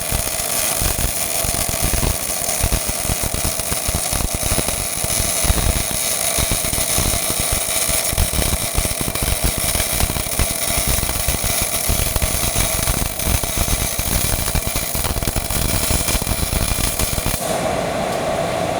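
MIG welding arc from a Millermatic 251, crackling steadily as a bead is run on a pipe fitting. The arc stops near the end, leaving a steady machine hum.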